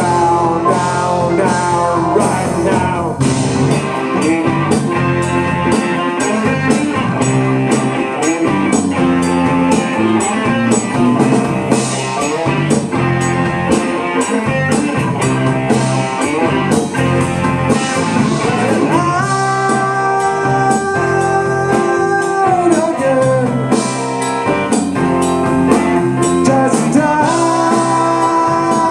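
Live blues-rock band playing: Telecaster-style electric guitar, electric bass, Roland VR-09 keyboard and drum kit, with singing at times. Long held notes ring out about two-thirds of the way through.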